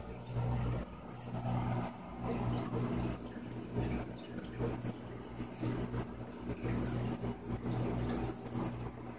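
Aquarium filter or pump running with a steady low electric hum that swells and dips, over the trickle and slosh of moving water.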